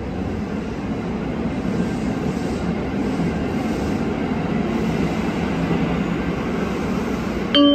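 Steady low rumble of a train at a station platform. Right at the end, the bell-like chime that opens the platform's approach announcement begins.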